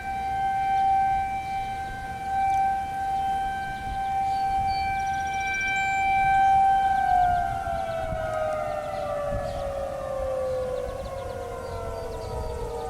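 Federal Signal 2001-SRNB electromechanical outdoor warning siren sounding a steady tone, then beginning to wind down about seven seconds in, its pitch falling slowly as the rotor slows at the end of the test.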